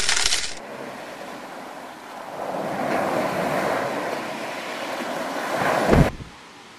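Intro sound effects: a rapid clicking rattle for the first half second as the scrambled title text resolves, then a rushing, surf-like whoosh that swells over a few seconds to a low boom about six seconds in and cuts off suddenly, leaving faint hiss.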